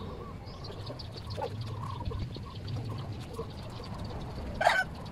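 Rural yard ambience with birds calling, over faint rustling and light taps from a small brush working a car's interior carpet and seats. A short, louder bird call stands out near the end.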